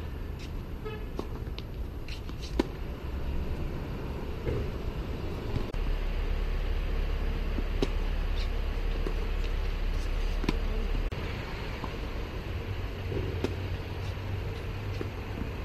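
Tennis balls struck by rackets during a rally, a sharp pop every couple of seconds, over a steady low rumble.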